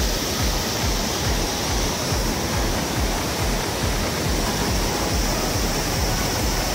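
Steady rushing of a waterfall and the river below it, an even, unbroken noise with no speech.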